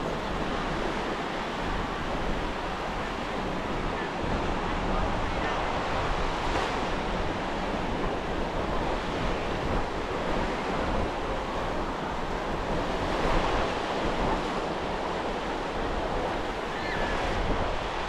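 Ocean surf washing onto a sandy beach, a steady wash that swells now and then as waves break, with wind rumbling on the microphone.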